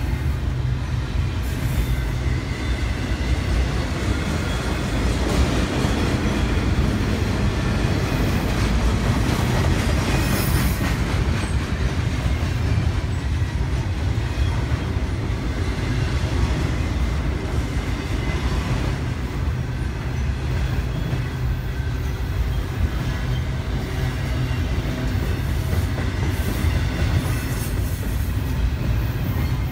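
BNSF double-stack intermodal freight train passing, its container well cars rolling by with a steady rumble of wheels on the rails.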